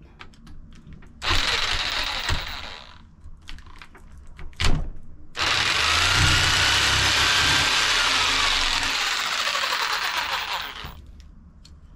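Handheld Warrior power saw cutting through a PVC pipe fitting. A short burst of cutting comes about a second in and a brief one near the middle, then a longer cut of about five seconds whose motor whine rises and falls before stopping near the end.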